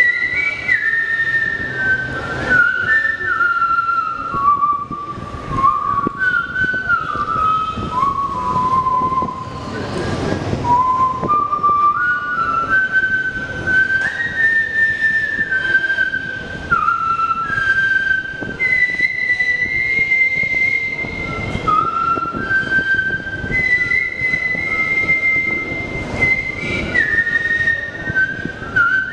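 A person whistling a slow melody into a microphone, one clear note at a time: the tune steps downward over the first ten seconds, climbs back up, then falls and rises again.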